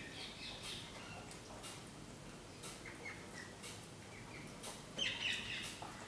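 A flock of rose-ringed parakeets calling in short squawks, with a louder cluster of calls about five seconds in, among scattered sharp clicks.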